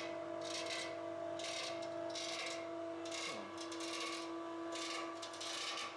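Electric cable winch of a home-built freight lift running with a steady motor hum as it hoists the platform, with a rasping scrape that comes and goes.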